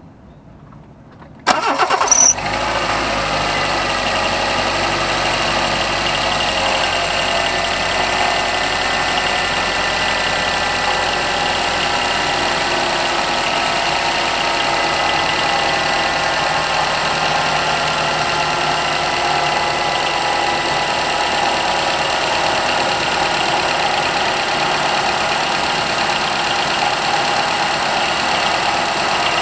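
2002 Suzuki Solio engine cranking and catching about a second and a half in, then idling steadily. Over the idle runs a steady tonal noise, the abnormal drive-belt noise the car has.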